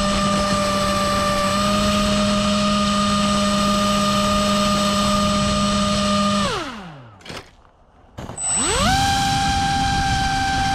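Brushless motor spinning the Sno-Speeder's 6-inch three-bladed propeller in its cowl, a steady loud whine as the throttle holds. About six and a half seconds in, the whine falls steeply in pitch and dies away. Just after eight seconds it spins back up to a steady whine.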